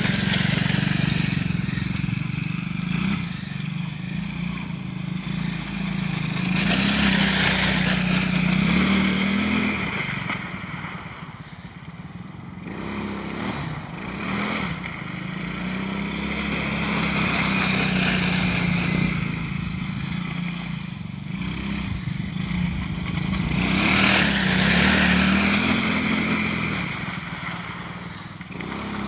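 Small single-cylinder four-stroke engine of a Tao Tao 110cc kids' quad running as it is ridden around. It grows louder and fades away several times as it passes near and goes off again.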